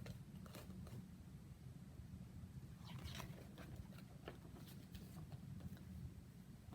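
Faint paper rustles and soft clicks of picture-book pages being handled and turned, a few scattered times, over a low steady room hum.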